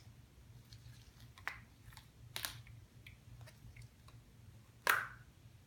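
A plastic surprise egg and toy being handled: small clicks and rustles, with two louder snaps, about two and a half seconds in and near the end, as the egg is pried open.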